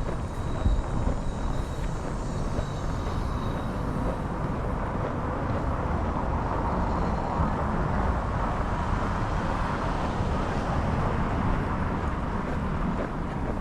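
Wind buffeting the microphone over steady city street traffic noise, with the traffic swelling a little past the middle.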